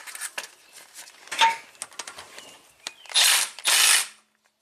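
Ratchet wrench tightening the pinch bolt on the shifter rod linkage: scattered clicks at first, then two quick, loud runs of ratcheting near the end.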